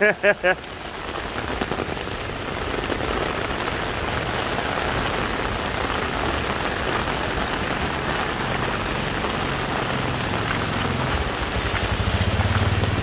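Heavy rain pouring steadily onto a flooded street and pattering on an umbrella held just overhead. A low hum comes in near the end.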